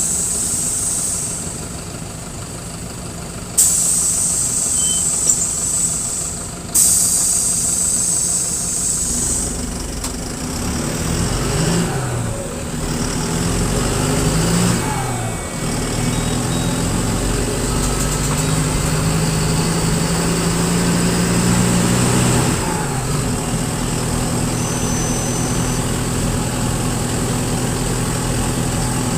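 Diesel engine of a Mercedes-Benz OF-1721 city bus with a holed exhaust. For the first several seconds loud air hissing starts and cuts off abruptly, typical of the pneumatic air system. Then the engine picks up, its pitch rising and falling a few times as it accelerates through the gears, before settling into a steady run.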